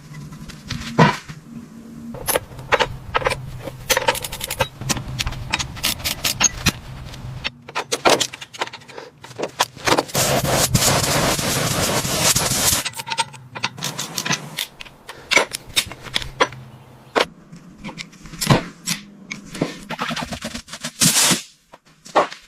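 Restoration work on car metal: rapid, irregular knocks and metallic clatter from tools, with a dense hissing, scraping stretch about ten seconds in.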